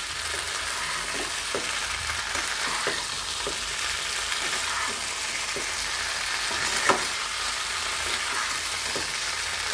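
Chilli chicken sizzling in a nonstick kadai while a spatula stirs and tosses it, with short scraping knocks of the spatula against the pan and one sharper clack about seven seconds in. The chicken is being fried briefly so the sauces coat it.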